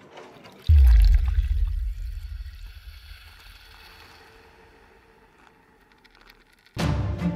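A sudden deep boom with a watery rushing hiss, fading away slowly over several seconds. Music comes in near the end.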